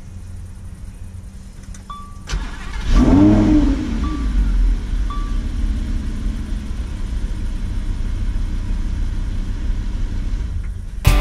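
Lamborghini Huracán's V10 engine starting: a short crank about two seconds in, then the revs flare up and fall back, and it settles into a steady idle. A few short electronic beeps from the car sound around the start.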